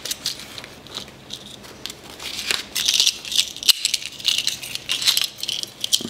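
The steel plate and short chain of a portable door lock rattling and clinking irregularly as they are handled and slid out of a cloth drawstring pouch.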